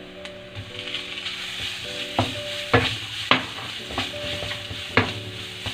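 Shredded cooked chicken being stirred into frying onions and spices in an oiled pan, the mixture sizzling, with several sharp clacks of the stirring utensil against the pan.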